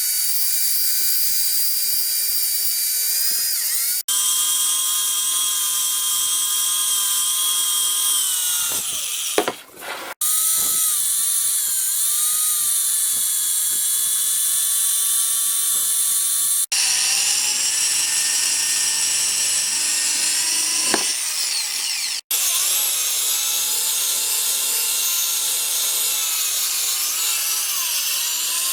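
A small high-speed rotary power tool running with a steady high whine. Its pitch sags briefly a couple of times as it is pressed into the work. The sound is cut into several segments by abrupt breaks.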